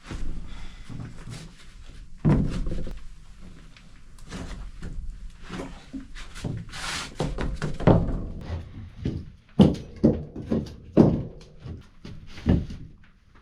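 A run of irregular knocks and thuds, as of solid objects being handled and set down, with the loudest knocks about two seconds in and again in the last few seconds.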